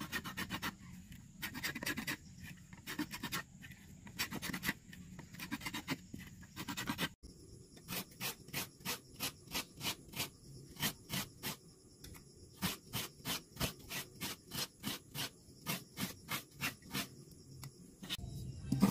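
Wooden spoon stirring and scraping thick dough against the bottom and sides of an aluminium pot, in short repeated strokes that settle to about three a second after a brief break about seven seconds in.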